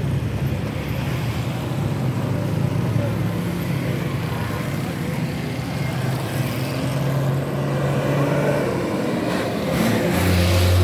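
Road traffic heard from a moving vehicle: car and motorcycle engines running with tyre and road noise as a convoy drives along the highway. A louder, deeper hum comes in near the end.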